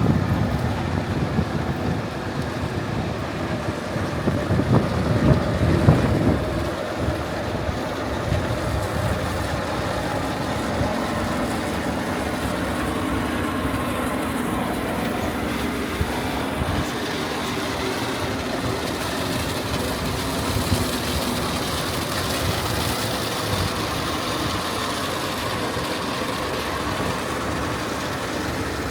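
Heavy concrete-pour equipment, mixer trucks and a concrete conveyor truck, running steadily. It is louder and rougher for the first six seconds, then settles to an even drone.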